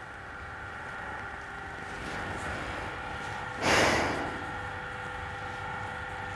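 A person lets out one sharp, breathy sigh about halfway through, over a faint steady hum of several held tones that slowly grows louder.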